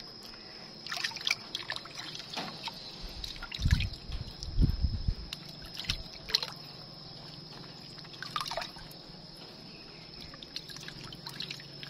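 Bath water trickling and dripping as a hand scoops it from a metal basin and pours it over a baby monkey, in a string of short splashes. There are a few dull low thumps about four to five seconds in, and a faint steady high whine underneath.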